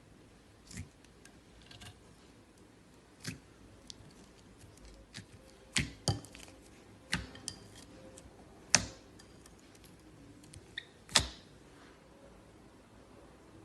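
Slime being squeezed and crushed by hand, giving irregular sharp clicks and pops, the loudest about six, nine and eleven seconds in.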